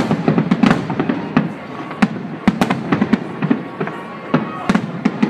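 Aerial firework shells bursting in a rapid, irregular string of bangs, several a second.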